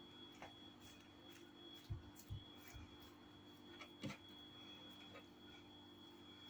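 Near silence with a faint steady hum, broken by a few soft low thumps about two seconds in and again at four seconds as hands roll a filled sheet of thin yufka dough into a rope on the table top.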